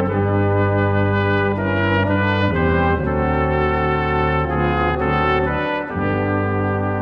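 Brass ensemble of trumpet, trombone, French horn and tuba playing a slow CCB hymn in held chords, with a steady tuba bass line. The chords change every one to three seconds.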